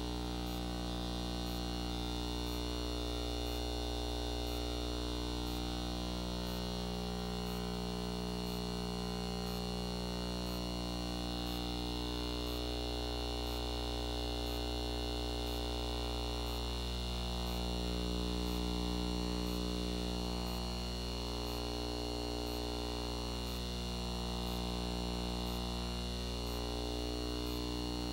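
A steady droning hum made of several held tones that slowly swell and fade against one another, with a faint high tick repeating a little more than once a second.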